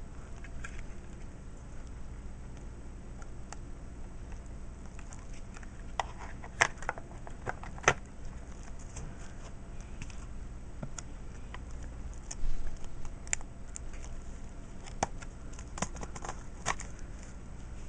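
Scattered light clicks and taps of small plastic and metal parts being handled as a 1.8-inch ZIF SSD is fitted into a netbook, over a steady low hum. The taps bunch together in the middle and toward the end.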